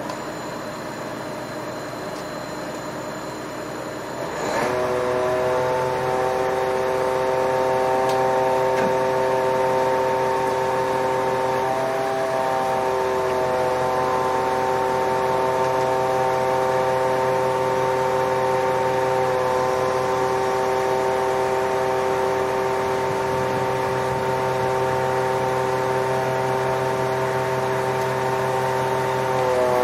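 Truck-mounted hydraulic crane lifting a heavy concrete septic tank. About four seconds in, the truck's engine and hydraulics rise to a higher, steady running speed with a steady whine. The whine shifts slightly in pitch a few times. Before that, faint high steady whistling tones.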